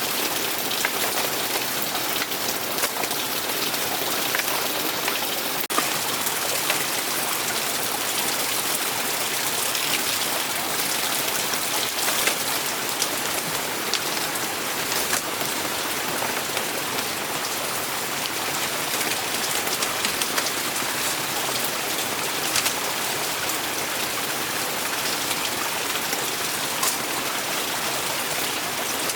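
Steady rain, an even hiss with many small drop ticks scattered through it.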